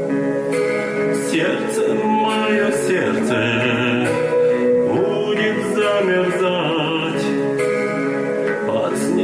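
Music: a song with a male voice singing long held notes over instrumental accompaniment.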